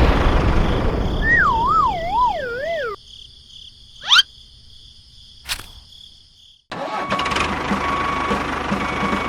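A small engine or motor running, with a wobbling tone that slides downward over it. About three seconds in the engine noise cuts off abruptly, leaving near quiet broken by a quick rising whoosh and a click. Near the end, steady engine-like noise returns with a held tone.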